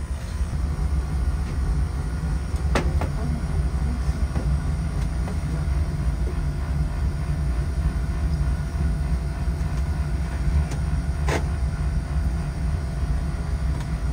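Oil-fired boiler's burner running on No. 2 fuel oil with a steady low rumble. Two sharp clicks, about three seconds in and again near eleven seconds.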